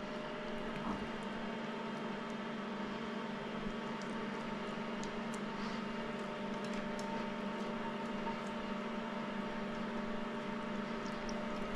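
Steady electrical hum and fan noise from kitchen appliances, with a few faint light scrapes of a silicone spatula against a stainless steel pan.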